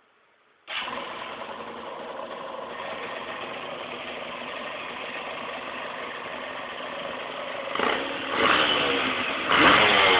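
Derbi GPR125's single-cylinder two-stroke engine, running on a Microsquirt fuel injection system, starts abruptly just under a second in and settles into a steady idle. Near the end the throttle is blipped three times, the revs rising each time.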